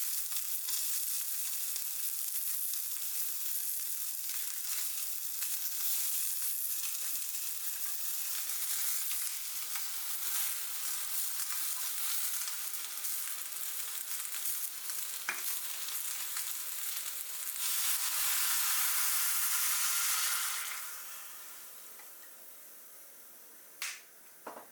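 Food sizzling and being stirred in an aluminium mess tin over a gas burner, a steady frying hiss. It grows louder for a few seconds in the last third, then dies down, and two short clicks come near the end.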